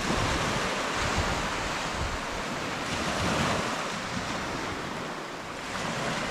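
Small waves breaking and washing up a sandy shoreline, a steady rushing surf with a gentle swell in loudness, with wind buffeting the microphone.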